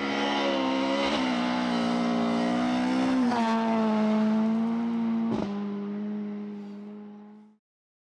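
Rally car engine running hard, its note changing step twice, with a sharp crack about five seconds in. The engine then fades away and cuts off suddenly near the end.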